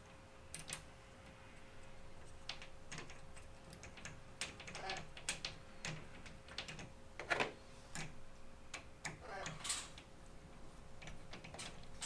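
Irregular small metallic clicks and scrapes of a hand screwdriver driving the set screw back into the roller bracket of an aluminum sliding glass door, with a few short falling squeaks among them.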